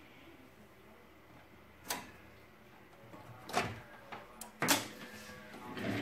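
A few sharp plastic clicks and knocks, one about two seconds in and a quicker cluster of four toward the end, as the HP LaserJet P3005 printer is handled.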